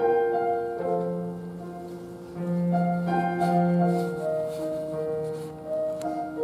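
Piano playing a slow introduction of held chords, with a low bass note coming in about a second in, ahead of a sung solo.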